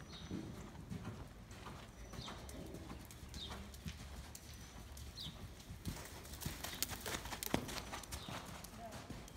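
Horse's hoofbeats on the sand footing of an indoor arena, with a few short high chirps in the first half and a run of sharper clicks about two-thirds of the way through.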